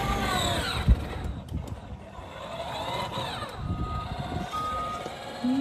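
Electric drive motors and gearboxes of a 12-volt, 400-watt XJD ride-on police car whining as it drives, the pitch falling in the first second, then rising and falling again about three seconds in. Two short electronic beeps sound near the end.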